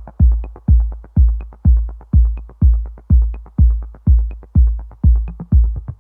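Electronic dance music with a heavy, deep kick drum on every beat, about two a second, and light ticks between the beats.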